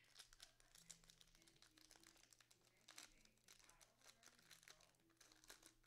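Faint crinkling and tearing of sports-card pack wrappers being opened by hand, as a run of irregular small crackles.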